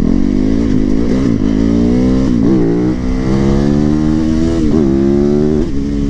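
2019 Yamaha YZ450FX's single-cylinder four-stroke engine, converted to a street-legal supermoto, pulling hard under throttle. Its pitch climbs and drops back sharply several times as the revs rise and fall.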